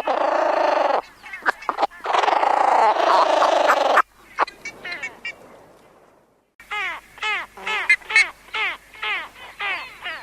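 Sacred ibis calls: first harsh, rasping croaks in two dense stretches, then after a brief gap a quick run of repeated calls, each sliding down in pitch, about three a second.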